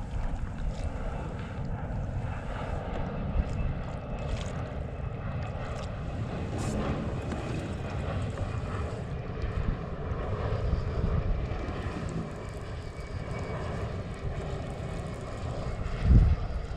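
Small propeller airplane droning overhead, a steady engine hum over a low rumble. A single thump near the end.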